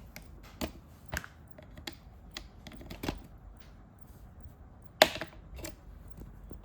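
A run of irregular sharp clicks and taps, the loudest about five seconds in.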